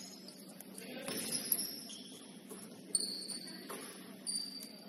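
Basketball shoes squeaking on a gym court, a scatter of short high squeaks, with a few dull thuds in among them.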